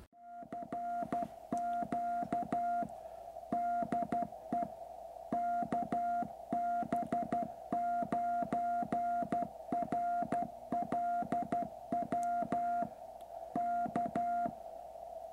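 QRP Labs QCX transceiver's CW sidetone: a single steady tone keyed on and off in Morse code, sending the callsign KB9RLW twice. It plays over a faint steady receiver hiss and stops about a second before the end.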